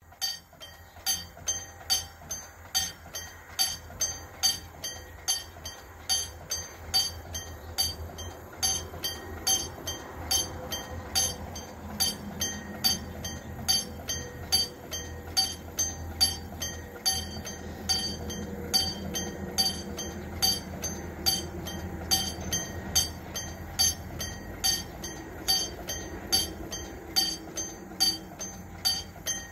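Railway level-crossing warning bell ringing in a steady, even rhythm of about two strikes a second, sounding while the crossing is closed to warn of an approaching train.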